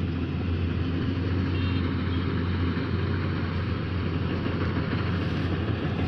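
K-BOS 880 combine harvester running steadily in the field: a constant low engine hum with the even clatter of the machine.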